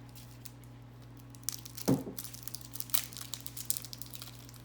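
Wrapper of a bubble gum cigar crinkling and tearing as it is unwrapped, starting about a second and a half in, with a short thump just before two seconds.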